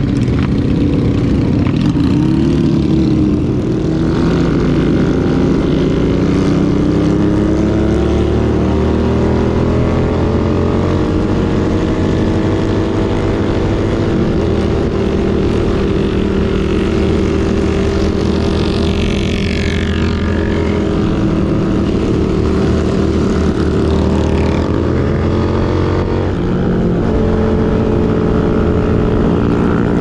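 Suzuki SV650's V-twin engine running under way at a steady cruise, its pitch creeping up slowly over the first ten seconds and then holding nearly level.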